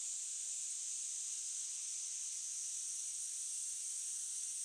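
A steady, even, high-pitched hiss with no other distinct sound.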